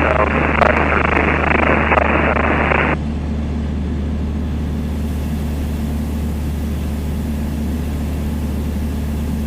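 Steady drone of a Piper Dakota's single piston engine and propeller in cruise, heard in the cockpit. For about the first three seconds a thin, radio-band voice from an automated airfield weather broadcast plays over it.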